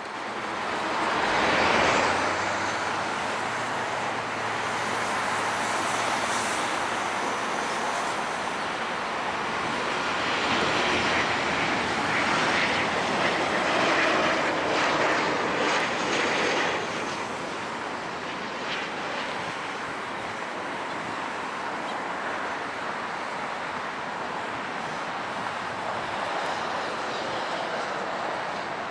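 Boeing 737-900ER jet airliner landing, its CFM56 turbofan engines a loud, broad roar that is strongest over the first half and eases about halfway through to a steadier, lower rush.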